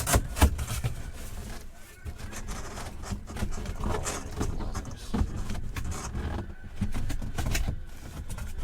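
Handling noise from unpacking a box: irregular rustling, scraping and knocks as items are pulled out and moved about, with a louder knock right at the start.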